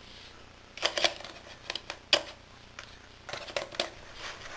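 Light clicks and taps of an iPhone 3GS and its cardboard retail box being handled as the phone is lifted out and set down. A few separate knocks, the sharpest about two seconds in.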